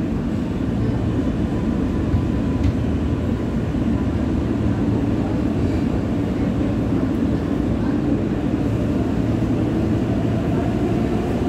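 Steady rumble inside an L train subway car as it pulls out of a station and gathers speed, with a faint rising motor whine near the end.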